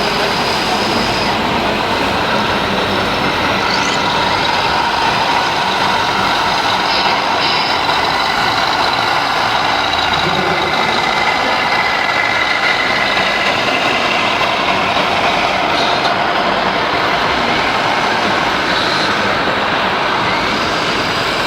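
Steady, loud mechanical din of radio-controlled model construction machines working, with small electric motors and hydraulic pumps of RC diggers and tipper trucks running continuously.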